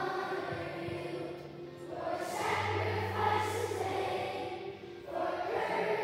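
Many children's voices singing a song together in long held notes, with short breaks between phrases about two and five seconds in.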